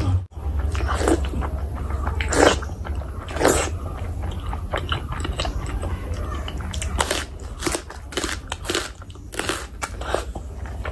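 Close-up eating sounds: wet chewing and smacking of curry-soaked chicken skin and rice, with crisp crunching bites of a whole raw red onion in the later part.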